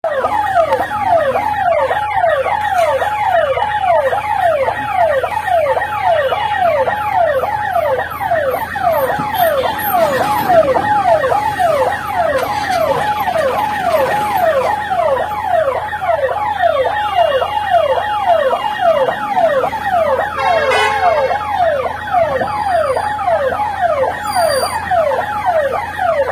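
Electronic siren wailing in a fast rising-and-falling warble, a little over two sweeps a second, without a break.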